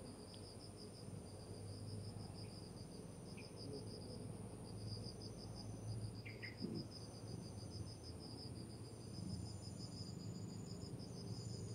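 Insects chirping in a rapid, steady pulsing trill, with a thin continuous high whine above it; faint throughout.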